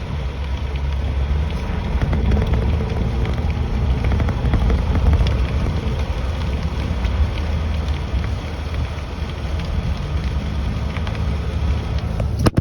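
A car driving, heard from inside: a steady, loud, low road and engine rumble with faint scattered ticks over it.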